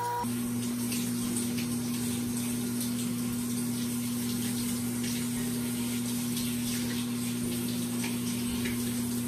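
Handheld shower head spraying water onto a cat's wet fur: a steady rush of running water with a constant low hum underneath.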